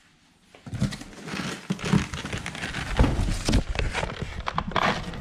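Cardboard box being picked up and handled close to the microphone: rustling and scraping with several knocks, starting a moment in, the heaviest bump about three seconds in.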